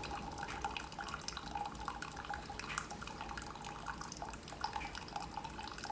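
Keurig Supreme coffee maker brewing: its pump running with a steady hum while hot water sputters and drips into the cup, air still working out of the lines.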